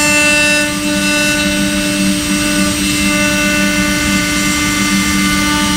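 CNC router spindle running with a steady, many-toned whine as its bit carves a wooden furniture leg turned on a rotary axis. Several of the higher tones fade about a second in and come back near the three-second mark.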